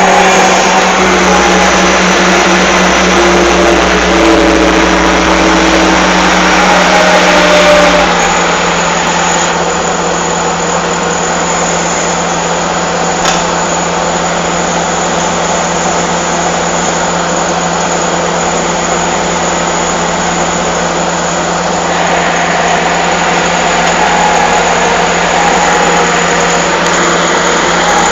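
Excavator's diesel engine running loud and steady. For the first eight seconds or so its pitch wavers as if working under load, then it settles to a steadier, lower-level run.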